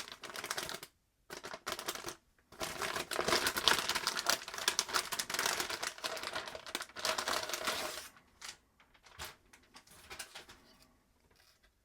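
Motherboard packaging being handled as the board is taken out of its box: rustling, scraping and rapid clicking of cardboard and wrapping. It is busiest in the middle and thins to a few light taps near the end.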